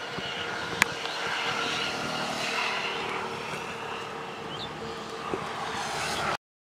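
Road traffic passing: a steady rushing vehicle sound that swells and eases, with a sharp click about a second in, then cuts off abruptly near the end.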